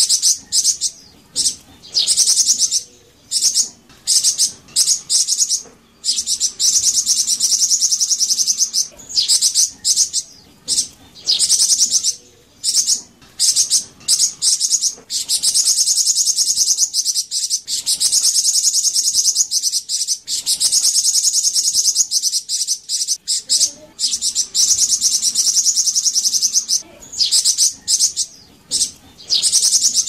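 Flamboyan songbird singing: long runs of rapid, high-pitched, buzzy chirping, broken by short pauses every second or few seconds.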